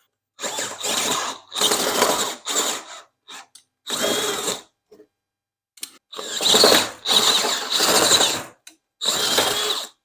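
Power drill with a long bit extension boring holes for the shower water lines. It runs in five short bursts of about one to two and a half seconds each, with brief stops between them; the longest burst comes a little past the middle.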